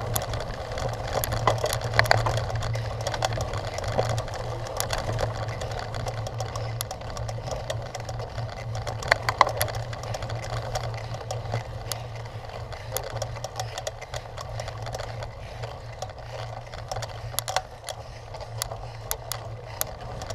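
Cyclocross bike being ridden over rough ground: a steady rolling rumble from the tyres and drivetrain, with frequent sharp clicks and rattles from the bike jolting over bumps.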